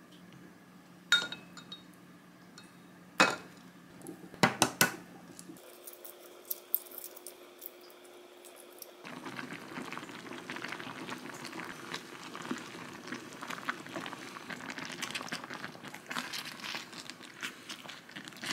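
A few sharp clinks and knocks of kitchenware in the first five seconds. From about halfway, a thick tteokbokki sauce thickened with starch water bubbles and reduces in a frying pan, making a dense steady crackle of small pops as a spatula stirs it.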